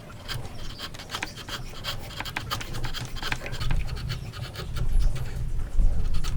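Hand tools working wood: irregular scraping and small clicks and knocks of steel on wood, over a low rumble.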